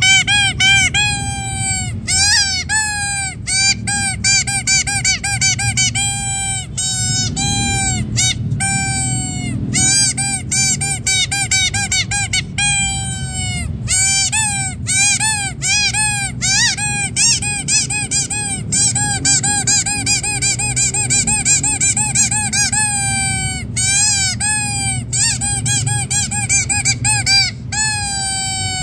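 Yellow rubber duck squeeze toy squeaked over and over, about two to three sharp squeaks a second, some dipping in pitch at the end.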